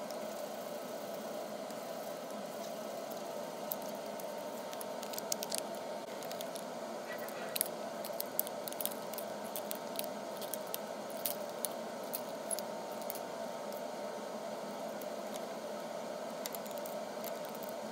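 Scissors snipping thin aluminum can sheet into strips and small squares: a scatter of short, sharp clicks, irregularly spaced, over a steady low hum.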